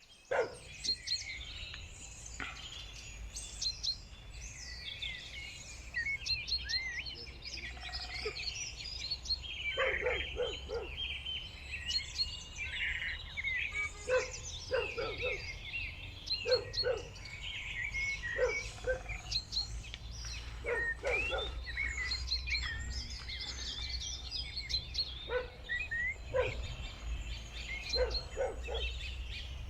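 Several birds chirping and singing at once in overlapping short calls and trills, over a steady low rumble.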